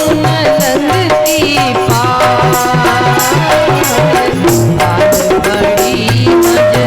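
Rajasthani folk devotional (bhajan) music: a melody over a steady beat of hand drum and jingling rattle-like percussion.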